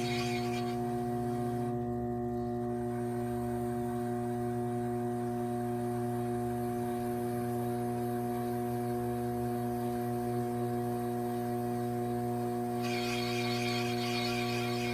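Electric potter's wheel running with a steady hum while a trimming tool scrapes clay off the spinning bowl, the scraping heard briefly at the start and again over the last couple of seconds.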